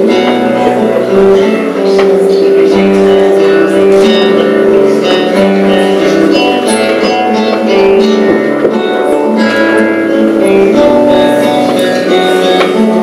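Guitar music playing: a plucked and strummed tune with held notes.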